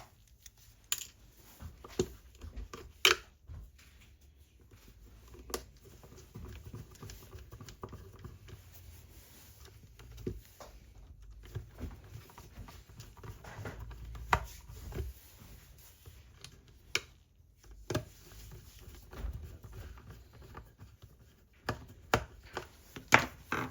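Hands reassembling a plastic DAB radio: irregular sharp clicks and taps of small screws, a screwdriver and plastic casing parts, over low rumble from the parts being handled.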